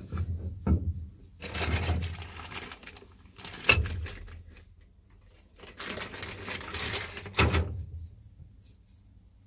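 Handling noises of a sandblast gun being taken apart in gloved hands. A few sharp knocks of metal and ceramic parts, the loudest about a third of the way in, come between stretches of rustling.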